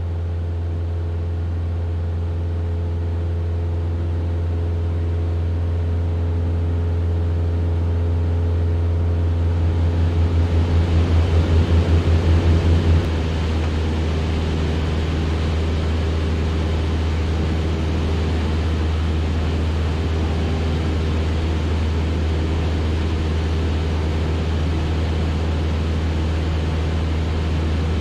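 Cessna 172RG Cutlass's four-cylinder engine and propeller droning steadily in flight, heard inside the cabin. About ten seconds in, the drone beats in a quick pulsing rhythm for around three seconds, then settles back to a steady drone.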